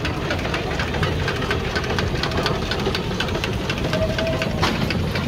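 Steam traction engine passing close by at slow speed, its motion clanking and knocking in a steady, rapid run over a low rumble.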